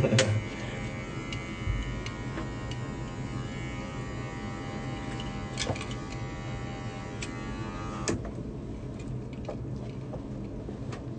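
Electric hair clippers running with a steady buzz, then switched off about eight seconds in, with a few sharp clicks along the way.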